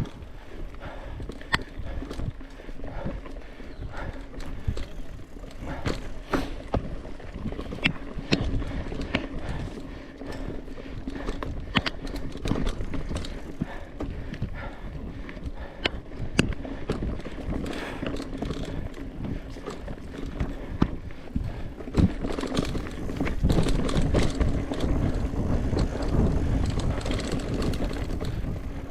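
Mountain bike ridden over rough trail, with irregular knocks and rattles over a steady low rumble.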